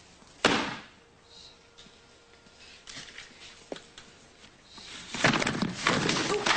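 A hardcover book slapped down onto a stack of books about half a second in. Near the end, the pile of books topples and clatters down onto a desk with papers.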